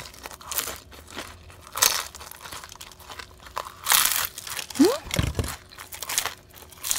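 Crisp shell of a deep-fried dumpling crunching close to the microphone as it is bitten and chewed, several loud crunches a second or two apart. A brief rising squeak and a low thud come just past the middle.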